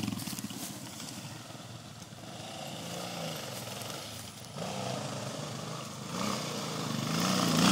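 Enduro dirt bike engines revving up and down on a forest trail. The engine sound fades as one bike rides off, then grows louder near the end as another bike approaches.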